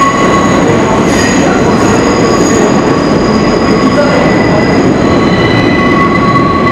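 R62A subway train's steel wheels squealing as it rounds the tight curve of the track, several steady high-pitched squeal tones over the rumble of the cars on the rails. About five seconds in, the squeal shifts as a new, higher tone comes in.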